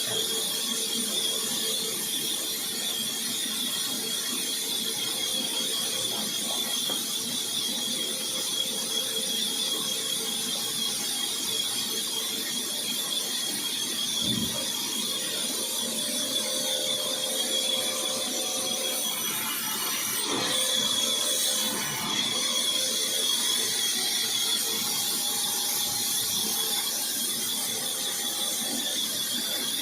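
A power woodworking machine running steadily with a high-pitched squeal over a hiss, changing briefly about two-thirds of the way through.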